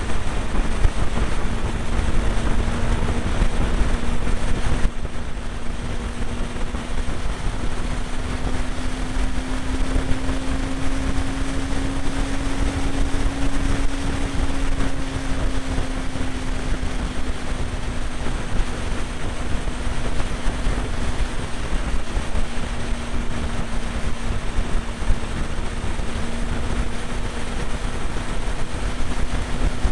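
Motorcycle engine at a steady motorway cruise: a constant hum that rises slightly in pitch about ten seconds in and settles back, under a heavy rush of wind and road noise.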